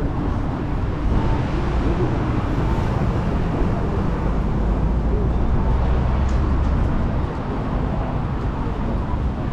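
City street ambience: road traffic running steadily, with a heavier low rumble from about five to seven seconds in.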